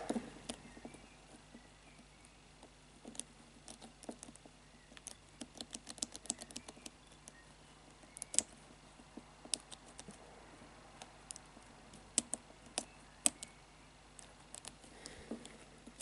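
Number wheels of an Abus 3406C combination cable lock clicking as they are turned one position at a time under tension while the combination is decoded by feel. Light, irregular clicks come in loose clusters.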